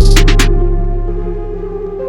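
Electronic background music: a heavy bass drum hit and quick high percussion strokes at the start, then the beat drops out about half a second in, leaving held synth notes over a slowly fading bass note.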